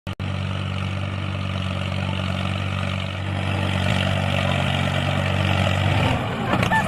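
Small engine of a DIY mini tractor running steadily at an even pitch, cutting in just after the start and fading about six seconds in.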